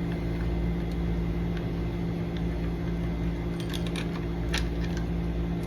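Steady machine hum holding several fixed pitches, with a few faint light clicks a little past halfway as a lock cylinder is worked off the door hardware.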